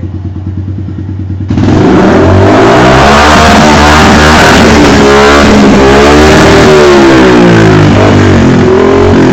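Small single-cylinder four-stroke motorcycle engine idling, then revved hard about a second and a half in, its pitch climbing and falling repeatedly as the throttle is blipped; very loud.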